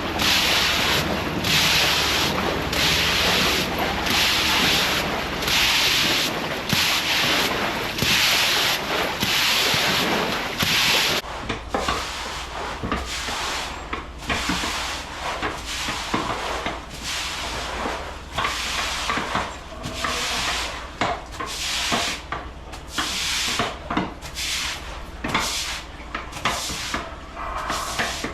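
Broom pushed in repeated strokes, sweeping floodwater across the barn floor, about one stroke a second. Partway through the strokes become lighter and less regular, with a steady low hum underneath.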